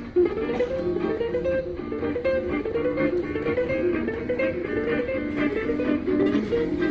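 Electric guitar, a Telecaster-style solid body played through a small amplifier, picking quick melodic runs of single notes that rise and fall.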